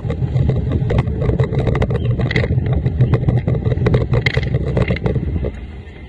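Formula 1 tunnel boat's racing outboard engine running hard at speed, with many sharp knocks over it. The noise drops off clearly about five and a half seconds in.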